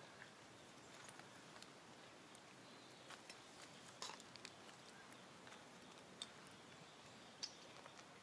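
Near silence with a faint hiss and a few faint, scattered crackles and ticks, the loudest about four seconds in: dry leaf litter stirring under the feet of long-tailed macaques walking over it.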